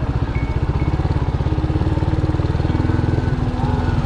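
Motorcycle engine running steadily, heard close from the handlebars, with a dense, even chugging pulse.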